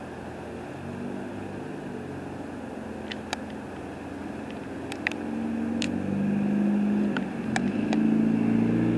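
A motor vehicle engine running close by, growing louder over the second half as it nears. A few sharp clicks come in the middle, over a steady background hiss.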